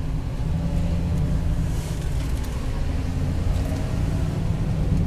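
Car driving slowly, heard from inside its cabin: a steady low engine and road rumble, with the engine note drifting gently up and down.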